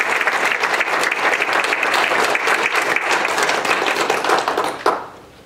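A small group of people applauding, a dense patter of many hands clapping, which stops about five seconds in.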